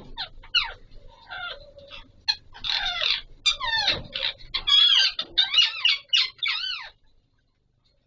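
Alexandrine parakeets calling: a quick run of harsh, rising and falling squawks and chatter that grows louder toward the middle and stops about a second before the end.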